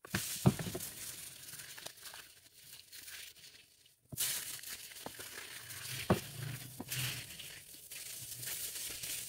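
Gift wrapping being handled, crumpled and torn open by hand: an uneven rustling and crinkling with a few sharp clicks, broken by a brief dropout about four seconds in.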